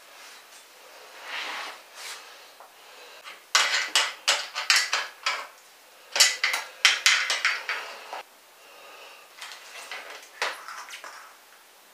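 Metal parts of a motorized bicycle clinking and rattling as they are handled, in quick clusters of sharp clanks. The loudest run is in the middle, with a shorter, quieter run near the end.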